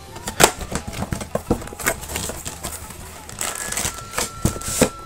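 Cardboard figure box being opened by hand: a run of clicks, taps and scrapes as the top flap is worked open and a flat cardboard insert is pulled out.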